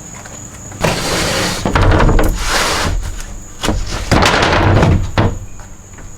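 A cut wooden piece being forced into place, with long scraping slides and several knocks and thumps as it is pushed home into a snug fit.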